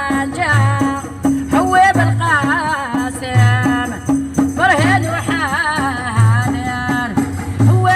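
Algerian meddahat-style folk song: a woman sings a wavering, ornamented melody over a steady low drum beat with a quicker percussion pattern and rattles.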